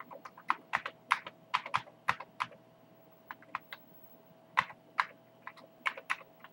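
Typing on a Commodore 128's keyboard: irregular key clicks as a modem dial command is entered, with a short pause about three seconds in.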